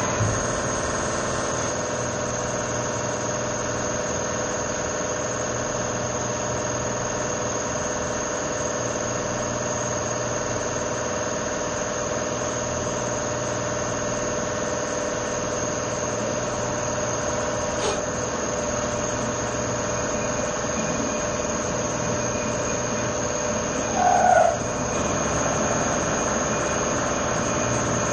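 CNC vertical mill running steadily, drilling holes in a billet aluminium engine block, with a steady spindle whine over the machine hum. Late on there is one brief, louder squeal.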